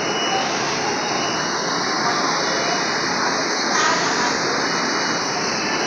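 Steady engine and machinery drone on a ferry's enclosed vehicle deck, loud and unbroken.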